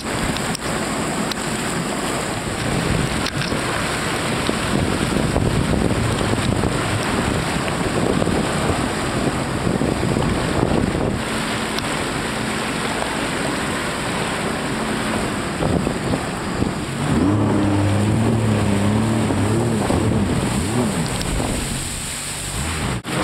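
Jet ski engines running over choppy water, with heavy wind noise on the microphone and water splashing. About seventeen seconds in, an engine note rises and falls in pitch for a few seconds as it is throttled.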